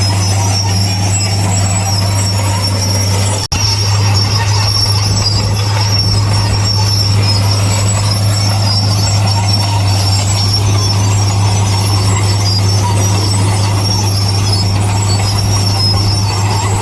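Heavy diesel earthmoving machinery running steadily, a low engine drone with a high metallic squeal over it like crawler tracks. The sound drops out for an instant about three and a half seconds in.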